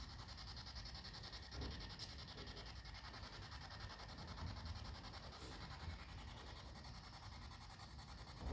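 Quiet ambience: a faint steady high hiss over a low rumble of the phone being handled, with a couple of soft knocks about two seconds in.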